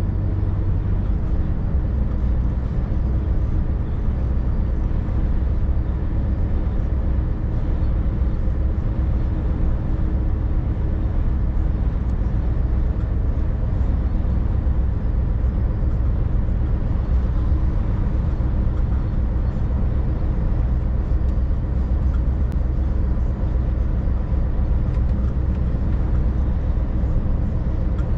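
Scania 530S truck's V8 diesel engine running steadily on the move, with tyre and road noise, heard inside the cab. The low drone drops slightly in pitch about a second in.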